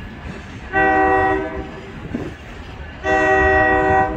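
Locomotive air horn sounding two blasts, each a chord of several notes: a shorter one about a second in and a longer one about three seconds in.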